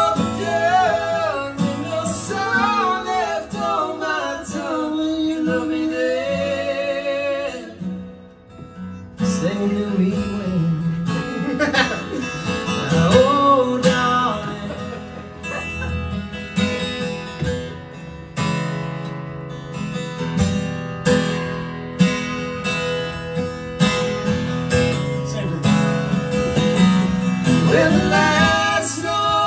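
Acoustic guitar strummed and picked with a man singing, a live acoustic duo performance. The playing drops away briefly about eight seconds in, then comes back.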